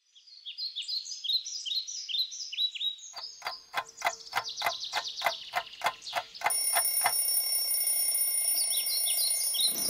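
Birds chirping in a steady run of short falling notes, then about three seconds in an alarm clock starts beeping rapidly, about four beeps a second, for some four seconds before stopping; the birdsong carries on.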